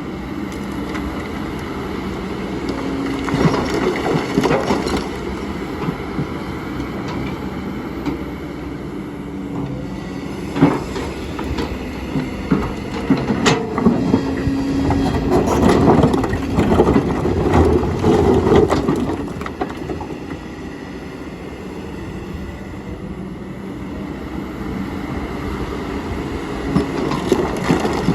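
Kobelco excavator's diesel engine running steadily, with stones knocking, grinding and clattering against the bucket in bursts as the rocks are turned over. The clattering is heaviest about halfway through and picks up again near the end.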